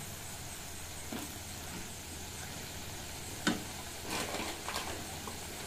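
Freshly salted khukhdi mushrooms sizzling gently in oil in a steel wok over a low gas flame. A metal spatula clinks against the pan about three and a half seconds in and scrapes a few more times near the end.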